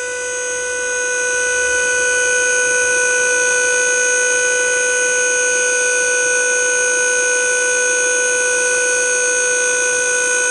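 Electric hydraulic pump of a dump-bed hoist running under load, a steady high whine with several pitches together, as it pushes the scissor-arm cylinder out to raise the steel dump bed. It grows a little louder in the first two seconds, then holds even.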